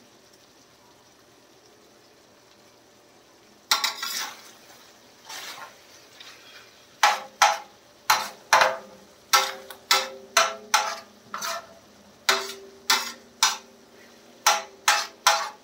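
Metal spatula scraping and clacking against a large steel tawa as fish in masala is stirred, about two strokes a second, the pan ringing after each stroke. A faint sizzle from the pan is heard before the stirring starts about four seconds in.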